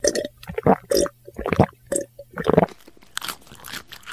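A quick irregular series of crunching sounds over a faint low hum, thinning to soft crackling near the end.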